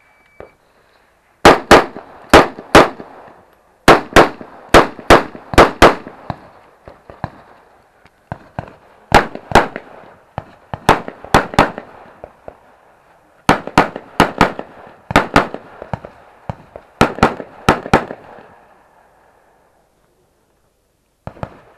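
A shot timer gives one short start beep, then a semi-automatic rifle fires about seven quick strings of shots, three to six rounds each, spaced by pauses of a second or two while the shooter moves between target arrays. Each shot is very loud, with a short echo after it, and the firing stops shortly before the end.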